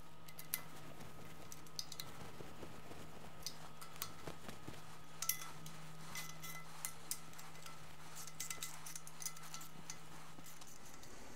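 Light metallic clinks and clicks, scattered and irregular, of small nuts and washers being handled and run onto the perimeter studs of a Volkswagen Type 1 aircooled engine case, over a steady low hum.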